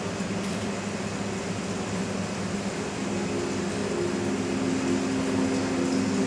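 Steady ambient drone played over the stage loudspeakers: an even hiss with low held tones underneath. Further tones enter about three seconds in, and it slowly grows louder.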